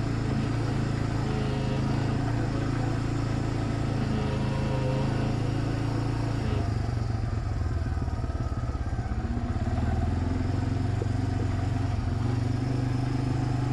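Suzuki 400 ATV engine running as it is ridden over a rough, rocky trail. About halfway through the engine note breaks up and dips, then climbs again.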